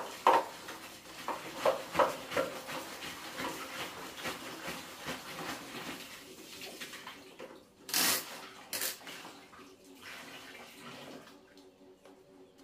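Water sloshing and splashing during cleaning, with sharp knocks of things being handled in the first few seconds and two short loud rushes of water about eight seconds in.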